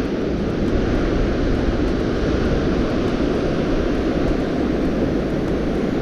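Strong gusting wind blowing across the microphone, a steady low rushing noise with no pauses.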